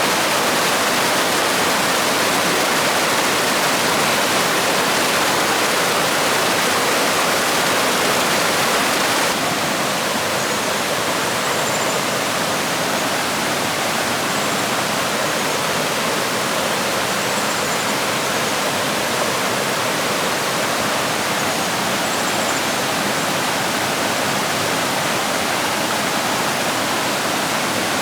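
Steady rushing of flowing water, a stream or small waterfall, with an abrupt change to a slightly softer, duller rush about nine seconds in. Faint high chirps come through later.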